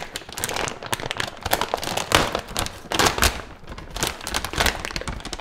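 Plastic packaging of dried yam noodle sheets crinkling and crackling as it is handled and opened.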